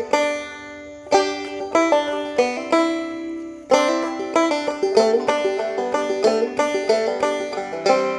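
Background music: a plucked banjo playing a country-style tune in short phrases of quick picked notes that ring out.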